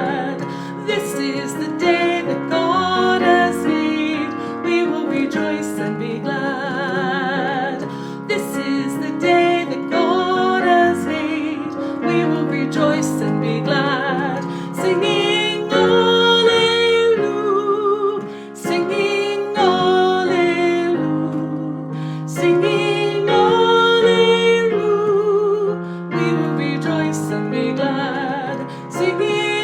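A hymn on piano with a woman's singing voice, the melody wavering with vibrato over steady chords.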